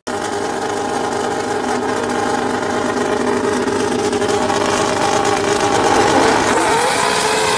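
Ten-cylinder car engine's exhaust running at a steady speed, a dense, even note that wavers slightly near the end.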